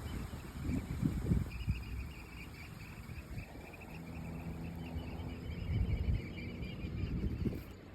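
Wind buffeting the microphone in irregular low gusts, loudest about a second in and again around six seconds, with a faint steady high chirring underneath.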